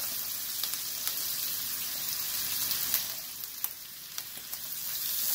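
Butter and olive oil with ginger and garlic sizzling in hot frying pans as sliced onion is added, with small pops and crackles. The sizzle grows louder near the end.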